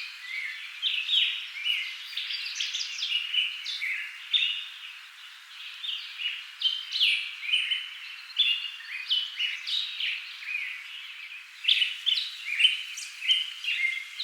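Bangles jingling continuously: a rapid, irregular run of short high clinks and rings, several a second, busier near the start and again after about twelve seconds.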